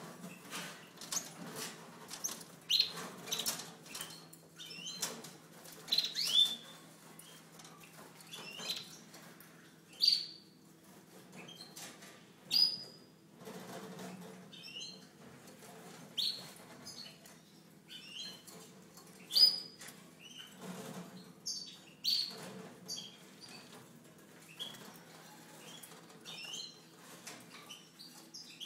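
Caged European goldfinches giving short, sharp chirps at irregular intervals, with wing flutters as birds flit about the cages. A faint steady low hum runs underneath.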